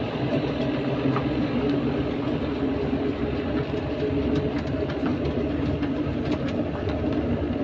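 Tourist road train running along a gravel track, heard from aboard one of its open carriages: a steady engine drone and rumble with scattered light clicks and rattles.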